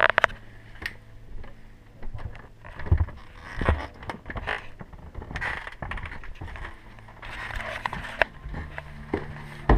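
Footsteps and handheld-camera handling noise: irregular knocks, clicks, scrapes and rustling, with a few heavier thumps about three seconds in, over a faint low hum.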